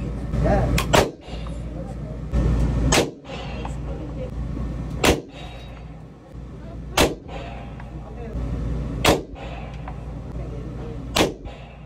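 Semi-automatic pistol fired in slow single shots inside an indoor range, roughly one every two seconds, each a sharp crack with a brief echo off the range walls, over a steady low hum.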